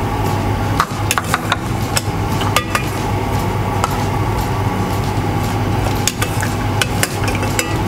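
A ladle knocking and scraping against a saucepan and small wooden soup bowls as miso soup is served, a scatter of light clinks and knocks over a steady background hum.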